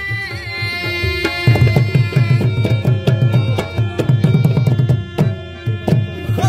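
An instrumental passage of Pashto folk music. A harmonium holds sustained notes while a tabla plays fast hand strokes, thickest from about a second and a half to five seconds in, then thinning out.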